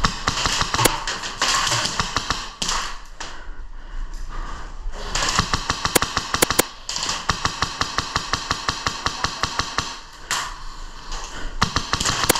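Airsoft rifle firing in several long rapid strings of sharp clicks, with short pauses between bursts.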